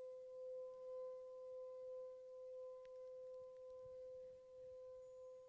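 A faint, steady pure tone held at one pitch, with a weaker overtone above it, gently swelling and easing in loudness: a sustained meditation drone of the tuning-fork or singing-bowl kind.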